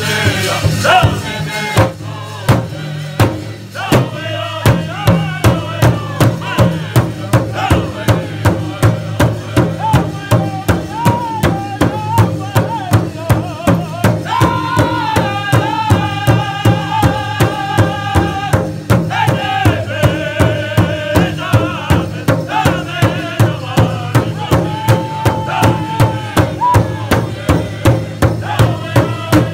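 Powwow drum group: several singers beat a large hide-covered drum together in a steady pulse, about two strokes a second, while singing in high voices with long held notes. The drumming thins out briefly about two seconds in, then picks up again.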